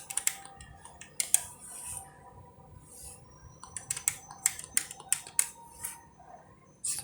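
Sharp clicks of keys or buttons being pressed on a self-service banking machine, in quick runs of a few a second, the densest run in the second half.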